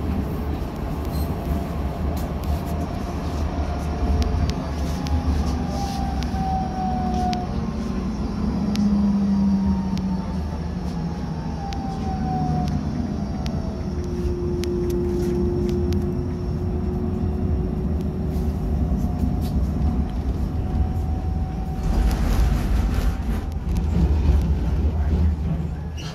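Cologne KVB light-rail tram running along its track, heard from the driver's cab. A steady rumble of wheels on rail runs under motor whines that glide slowly in pitch, with scattered clicks from the wheels over the track and a louder rushing stretch about 22 seconds in.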